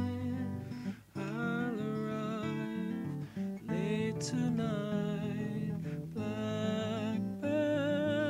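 An acoustic guitar is played while a man's voice sings along in phrases, with short breaks between them.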